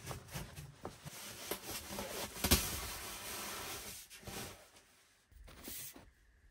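Steel stovepipe sections knocking and scraping as they are fitted together onto a small wood stove, with one sharper clank about two and a half seconds in. The handling fades out near the end.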